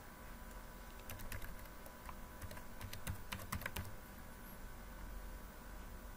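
Computer keyboard being typed on: a quick run of key clicks about one to four seconds in, then the keys fall still, over a faint steady hum.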